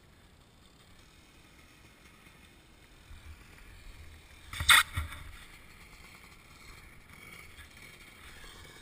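Dirt bike running faintly as it rides down a gravel road, with one sharp knock about halfway through.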